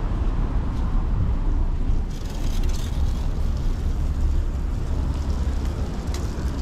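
Outdoor city street ambience: a steady low rumble, with a brief hiss about two seconds in.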